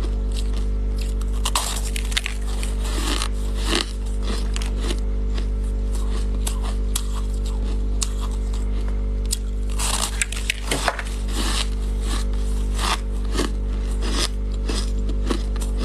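Close-up crunching and chewing of packed shaved ice: sharp, irregular crackles and crunches as bites are taken and ground, with a denser burst of crunches about two-thirds of the way through.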